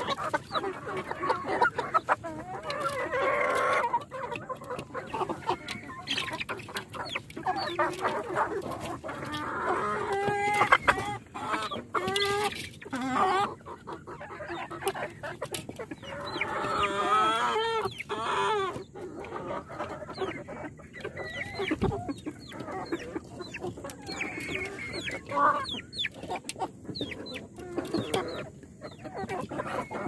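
A crowded flock of Kadaknath chickens and brown hens clucking and calling nonstop, with many short sharp ticks among the calls. The calling gets louder for a moment about ten seconds in and again for a longer stretch around seventeen seconds in.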